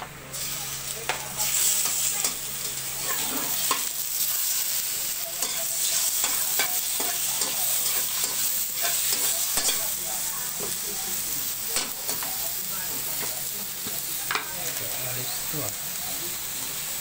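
Meat and vegetables sizzling in a hot wok as they are stir-fried, the metal spatula scraping and clicking against the pan again and again. The sizzle grows louder about a second and a half in.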